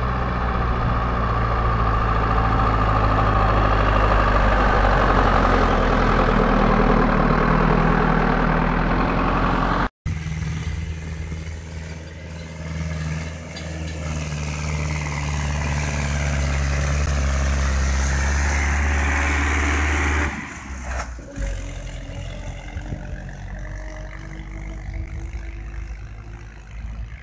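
Tractor diesel engines running steadily, with a hard cut about ten seconds in. In the second part a red Ursus C-360 tractor pulling a loaded trailer passes close by; its engine sound drops suddenly just after twenty seconds and then fades as it moves away.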